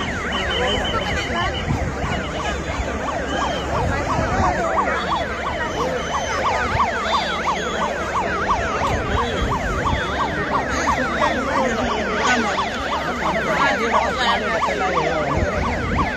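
Emergency vehicle sirens sounding continuously, several overlapping in quick rising-and-falling sweeps, over the shouting of a crowd, as rescuers respond to a plane crash.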